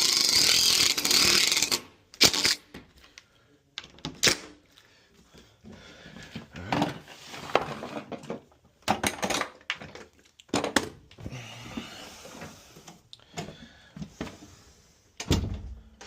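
A cordless drill/driver runs with a wavering whine for about two seconds, as if driving screws into the lock hardware, then stops; scattered clicks and knocks of metal hardware and tools being handled follow.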